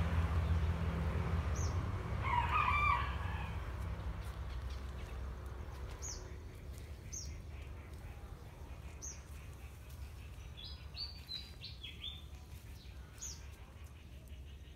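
A rooster crows once, about two to three seconds in, over a low rumble that fades out. Small birds then chirp with short, high, falling calls, a few at a time, through the rest of the clip.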